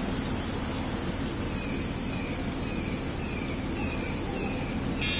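Steady outdoor background of a constant high hiss and low rumble, with a run of short falling chirps about twice a second in the middle. Near the end an electronic buzz starts: the pager on a Dogtra e-collar.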